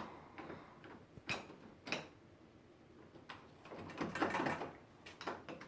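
Sharp clicks and a short rattle of door knob hardware being worked with a hand screwdriver while its mounting screws are tightened.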